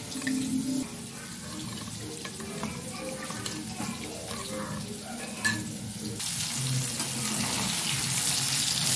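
A steel spoon stirring a wet spice paste in a glass bowl, with a few light clinks. About six seconds in, it gives way to pieces of hilsa fish frying in oil in a wok, a steady sizzling hiss that is the loudest sound.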